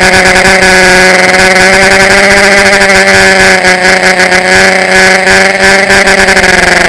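Electric motors and propellers of a small radio-controlled aircraft running at a steady, loud buzzing whine that wavers slightly in pitch. It is heard close up through the aircraft's onboard camera.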